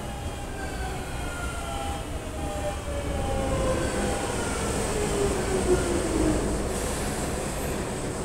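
JR Central 383-series electric limited express pulling into the station and slowing. A steady rumble of wheels on rail sits under a motor whine that falls slowly in pitch as the train brakes.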